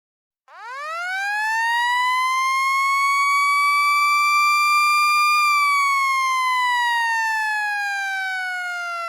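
Galls Q siren winding up from silence about half a second in, its pitch climbing quickly and then levelling off at a peak a little past the middle, then slowly winding back down.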